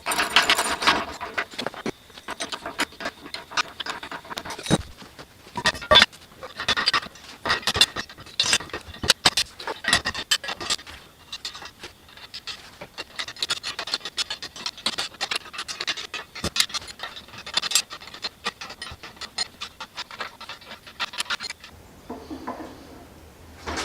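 Handling and tool noise from assembling a band sawmill: metal parts and tools clattering and scraping in an irregular run of clicks, knocks and scrapes, with two sharper knocks around five and six seconds in, easing off near the end.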